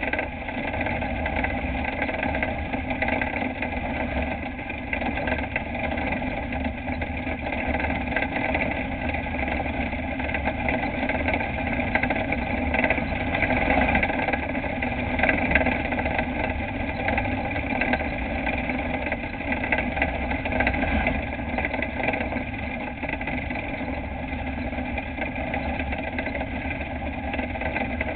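Dirt-track race truck's engine running on the track, heard from inside the cab: a steady drone with small swells and dips in loudness.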